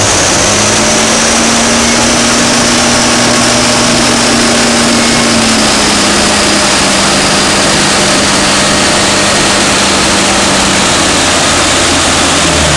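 Mitsubishi Lancer Evolution V's turbocharged 2.0-litre four-cylinder running loud and steady on a rolling road, with a high whine that slowly falls in pitch throughout.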